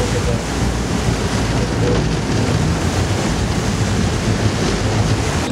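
Steady wind buffeting the microphone over the rush of open sea.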